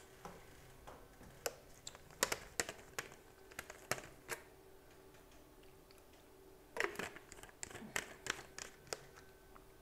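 Light clicks and taps of objects being handled, in two clusters about two and seven seconds in, over a faint steady hum.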